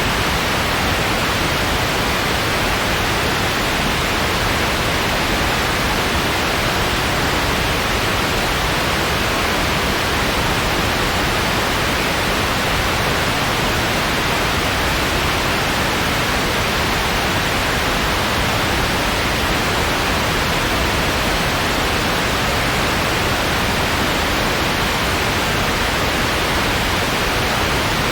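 Steady, even white noise: a continuous hiss with no changes.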